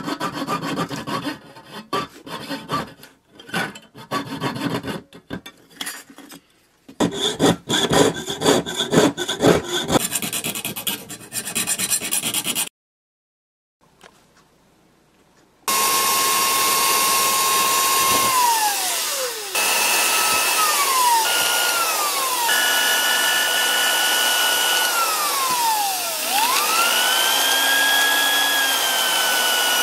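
Jeweller's piercing saw cutting thin brass plate in quick, uneven back-and-forth strokes. After a pause of a few seconds, an electric drill runs steadily while boring holes in brass plate clamped in a vise; its whine drops in pitch several times and rises again near the end.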